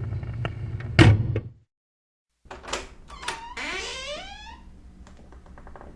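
Door hinges squeaking as a door swings: a held squeak, then a knock about a second in. After a short break comes another gliding squeal with a few clicks.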